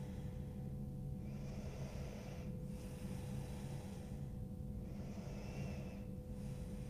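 A woman breathing slowly and evenly while holding a stretch, one breath roughly every two seconds, over a faint steady low hum.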